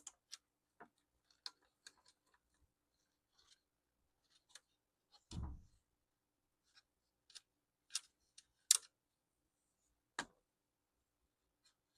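Scattered sharp clicks and taps from Lenovo T430 laptop parts being handled during disassembly, with a dull thump about five seconds in and the loudest clicks a little later.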